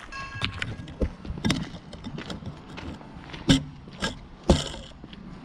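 Footsteps: a string of sharp steps, about two a second, loudest in the second half. A short high pitched tone sounds right at the start.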